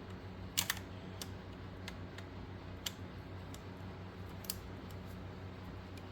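A few small, sharp clicks and taps from handling tools and the plastic parts of an HO scale model locomotive's coupler, the loudest about half a second in, over a low steady hum.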